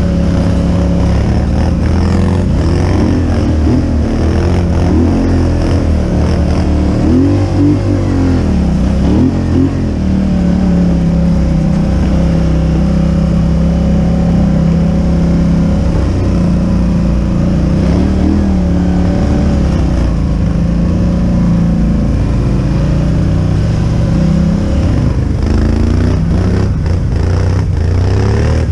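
ATV engine running close up, its pitch rising and falling over and over as the throttle is worked while climbing a snowy trail.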